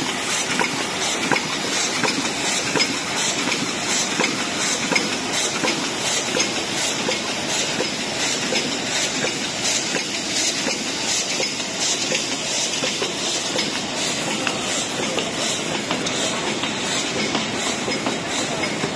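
High-speed paper cup making machines running: a steady mechanical clatter with evenly repeating clicks as the cup-forming turret cycles.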